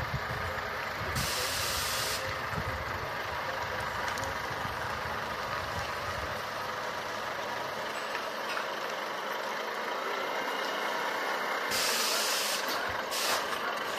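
Heavy-haul truck and long blade-transport trailer rolling slowly past, its engine and running gear giving a steady rumble that thins out in the second half. Sharp air-brake hisses sound about a second in and again twice near the end.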